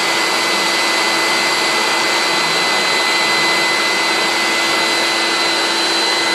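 Vacuum cleaner running steadily: an even rush of air with a constant high motor whine.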